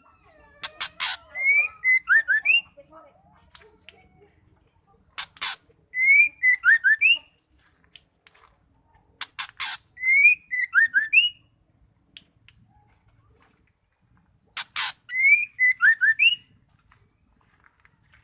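Female white-rumped shama calling: a harsh rasp followed by a few short rising whistles and thin high chirps. The same phrase comes four times, about every four to five seconds, with short gaps between.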